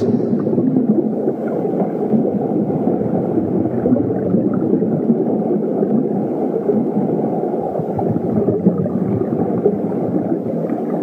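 Steady, muffled low rumbling: a cartoon sound effect with no music under it.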